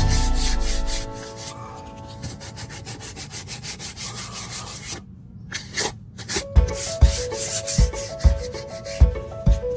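Hand sanding on wood: sandpaper rubbed back and forth in quick, even strokes, with a short pause about five seconds in and light knocks in the second half.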